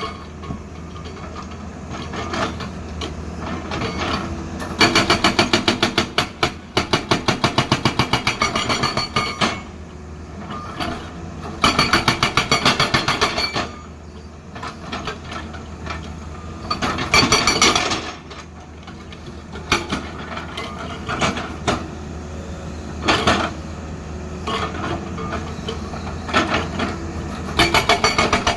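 Hydraulic rock breaker on a Tata Hitachi excavator hammering hard stone in several bursts of rapid, evenly spaced blows, the longest about four seconds. The excavator's engine runs steadily underneath.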